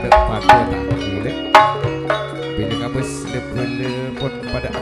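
Madurese gamelan ensemble playing a gending: bronze metallophones and gongs ringing in held tones over a hand drum, with a few loud struck strokes in the first two seconds.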